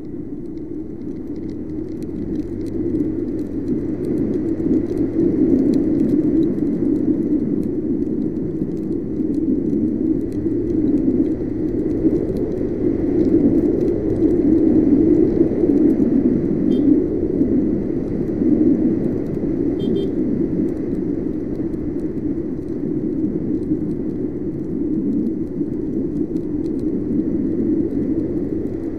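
Steady wind and road noise from a moving Yamaha NMAX scooter on a wet road, growing louder over the first few seconds as it speeds up.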